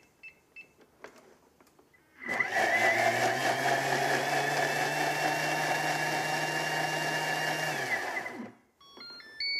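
Thermomix motor running at its top speed, speed 10, chopping onion, capsicum, chilli and garlic into a smooth paste: it spins up with a rising whine about two seconds in, runs steadily for about six seconds, then winds down. Short beeps from the machine's controls come just before it starts, and a run of beeps near the end as it finishes.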